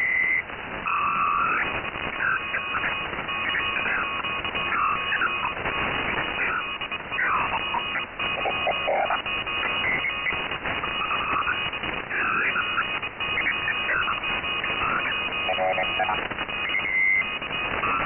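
Shortwave radio in lower sideband: a Brazilian "Peskie" pirate station sending waterfall images, heard as a shifting tangle of gliding, warbling tones over a bed of static hiss.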